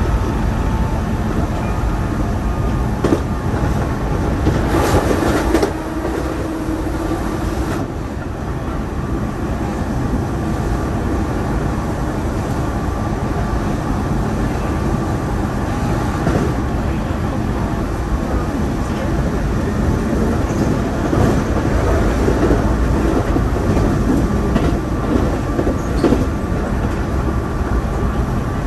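Keihan limited-express electric train running at speed, heard from inside the leading car: a steady rumble of wheels on rail with occasional clicks over the rail joints.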